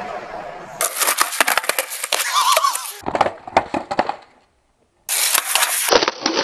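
Skateboard deck and wheels clattering and knocking on hard ground in rapid sharp strikes. They stop for about half a second of silence past the four-second mark, then start again.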